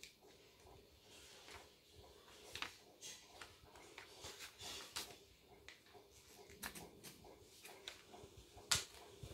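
Small children's scissors snipping paper: a run of soft, irregular snips and clicks, the sharpest one near the end.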